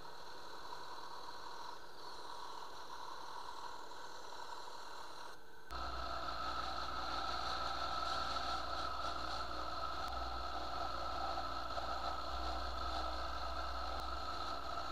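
Electric scroll saw running and cutting small pieces of wood. About six seconds in the sound changes abruptly to a louder, steady run with a low hum.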